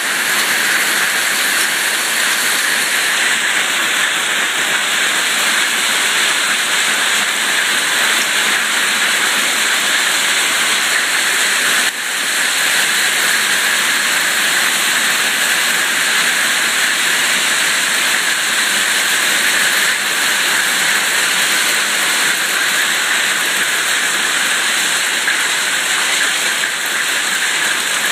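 Pea-sized hail and rain pelting a concrete driveway and a parked pickup truck: a dense, steady hiss.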